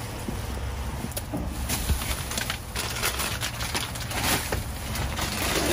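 Plastic bags and snack packaging rustling and crinkling as they are handled, with scattered light knocks, over a steady low hum.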